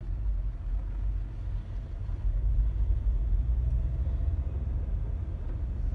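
Low, steady rumble of a car's engine and tyres on the road, heard from inside the cabin while driving.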